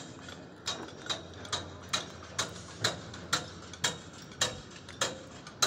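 Hammering on steel: a steady run of sharp metallic clinks, about two a second.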